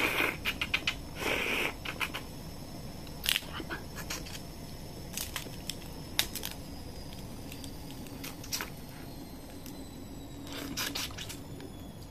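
Cooked crab shell cracking and snapping as it is pulled apart by hand and bitten, with sucking at the meat: scattered sharp cracks, a couple of short slurps near the start and a cluster of snaps near the end.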